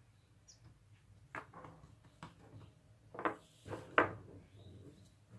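Hands working brioche dough and almond-paste filling: a few soft, scattered taps and rustles as dough is pressed on the countertop and filling is pinched from a ceramic bowl, with a sharper click about four seconds in.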